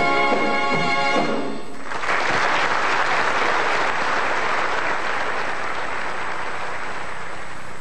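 A big band of saxophones and brass finishes its tune with sustained notes that stop about a second and a half in, then an audience applauds, the clapping slowly fading away.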